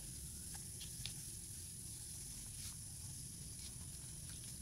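Faint wet squishing of a hand kneading suckermouth catfish roe mixed with honey in a bowl, with a few soft clicks, over a steady high hiss.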